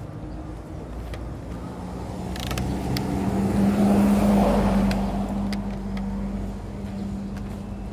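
A car passing close by, building to its loudest about four seconds in and then fading away.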